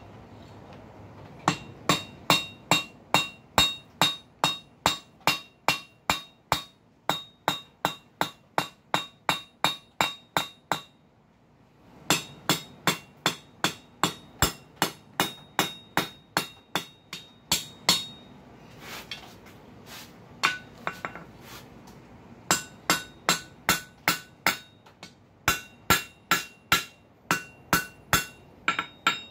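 Blacksmith's hand hammer striking a red-hot flat steel bar on an anvil in quick, even blows, about three a second, each with a bright metallic ring. It is forging down the hot end of the bar to round it. The hammering stops briefly about halfway through and again about two-thirds of the way in, where there are only a few scattered blows.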